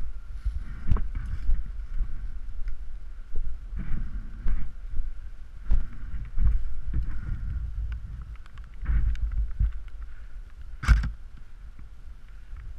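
Irregular thumps and rubbing of movement and gear handling close to the microphone. One sharp crack about eleven seconds in.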